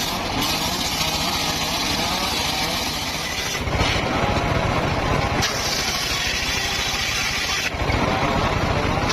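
Engine-driven circular saw at a small sawmill running steadily, its sound shifting a few times, about three and a half, five and a half, and seven and a half seconds in.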